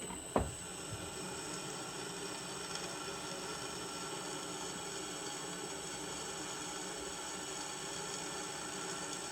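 Electric drill running steadily with a 3/16-inch drill bit cutting through a steel truck leaf spring, lubricated with a drop of cutting oil. A single sharp knock comes about half a second in.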